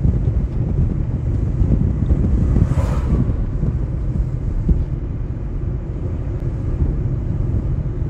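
Steady low rumble of a car driving along a road, mixed with wind buffeting the microphone.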